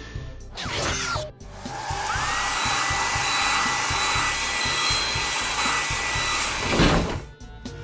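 Cartoon car-wash machine sound effect: a sweeping whoosh about half a second in, then a steady whirring hiss like an air blower with a whine that rises and holds for about five seconds, ending in a low whoosh near the end. A backing track with a steady beat plays underneath.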